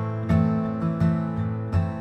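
Background music: a strummed acoustic guitar playing a steady rhythm, with a strum roughly every three-quarters of a second.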